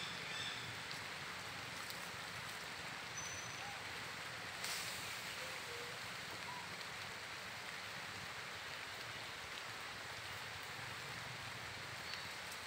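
A steady hiss of outdoor ambience, with a brief crackle about five seconds in and a few faint short chirps.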